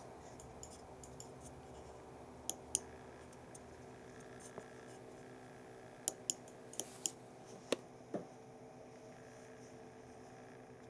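Sharp plastic clicks from working the loose scroll-wheel button of a Mad Catz R.A.T. 9 mouse: two about two and a half seconds in, then a cluster of about six a few seconds later.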